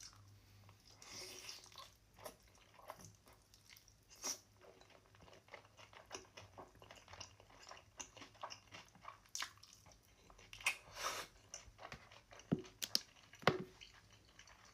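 Close-miked eating: a mouthful of cheesy fire noodles topped with radish being bitten and chewed, wet mouth sounds with short crisp crunches. The loudest few crunches come near the end.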